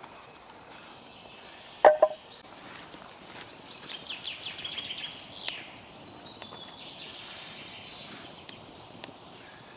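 A sharp, loud double knock of wood about two seconds in. A songbird then sings a quick run of high chirping notes, with fainter birdsong after it and a few light ticks near the end.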